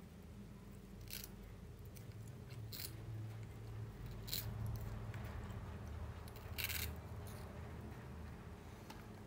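Baby macaque biting and chewing a crisp wafer biscuit: about four short crunches over a steady low hum, the loudest near the end.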